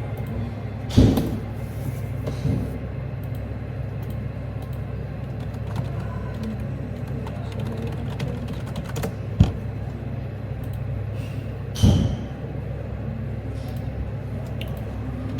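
Steady low rumble with a few sharp knocks or thumps, the loudest about a second in and near the end.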